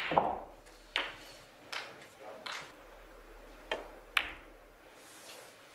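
Snooker balls clicking on a match table: a cue tip striking the cue ball and balls knocking into each other. About six sharp clicks come roughly a second apart, the loudest at the start.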